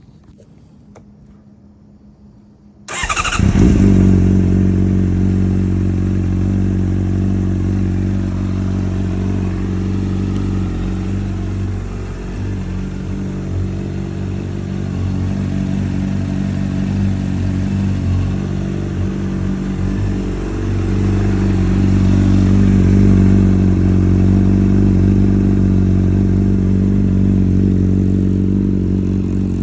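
Honda CBR600RR's inline-four engine, warm and breathing through a full Akrapovic exhaust, starts about three seconds in and settles into a steady idle. The idle gets a little louder after about twenty seconds.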